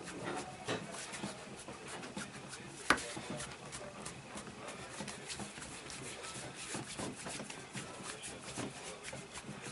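Hands rubbing and kneading over a patient's skin during a massage, with many small clicks and one sharper click about three seconds in.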